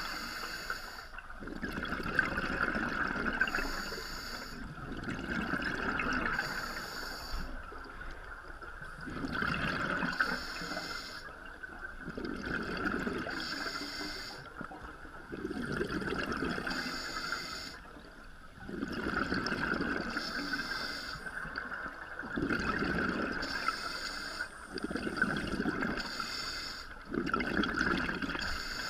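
Scuba diver breathing through a regulator underwater: a hiss on each inhale alternating with a gurgling rush of exhaled bubbles, repeating every few seconds.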